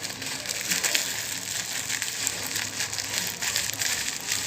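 Hands kneading and squeezing homemade glue slime while boric-acid water activator is worked in, a continuous sticky, crackling squish.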